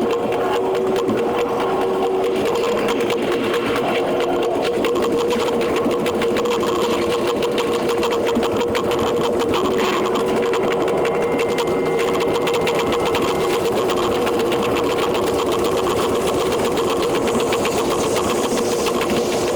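E721 series electric train running, its audio sped up tenfold. The wheel and rail clatter becomes a fast, continuous machine-like rattle over a steady tone.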